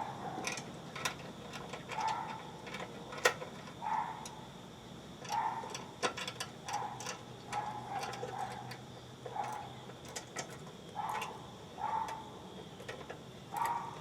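Light metal clicks and taps of bolts, washers and nuts being fitted by hand to the back edge of a mower deck, with short mid-pitched squeaks recurring every second or so.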